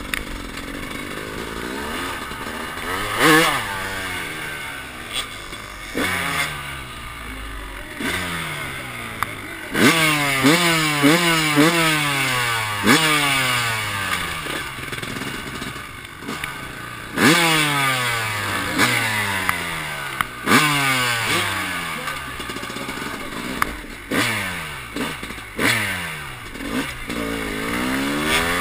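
Freestyle motocross bike's engine heard from on board, the throttle blipped again and again: each time the revs jump up sharply, then fall away before the next blip.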